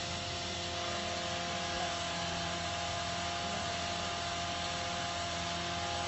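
Steady background hum and hiss with a few constant tones and no distinct event.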